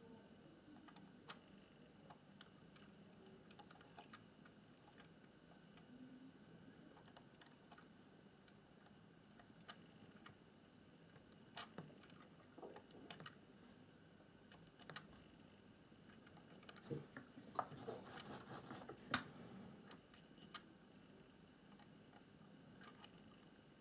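Faint, scattered small clicks and ticks from hand-soldering the pins of a surface-mount chip with a soldering iron. A short run of crackling clicks comes about eighteen seconds in, with one sharper click at its end.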